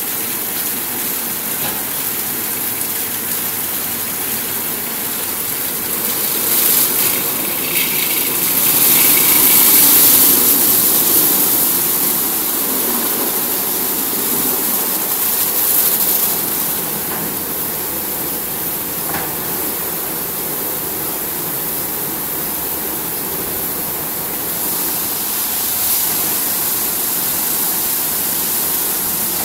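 Automatic rollover car wash running: its rotating brush gantry and water jets going over a car, a steady rushing hiss of spray over a machine hum. The spray swells louder several times, around seven, ten and sixteen seconds in.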